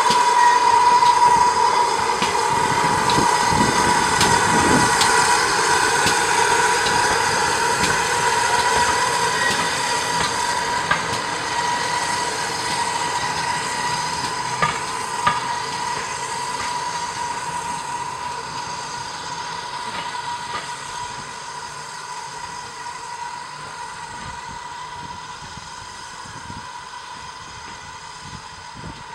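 GWR 1400 class 0-4-2T steam tank engine No. 1450 pulling away with a coach, its sound fading steadily as it draws off. A steady high-pitched ring runs through it, with a few sharp clicks about halfway.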